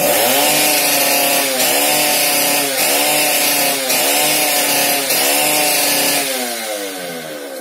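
Two-stroke chainsaw engine running at a steady speed, its pitch dipping briefly and recovering about four times, then falling away as the engine winds down and stops near the end.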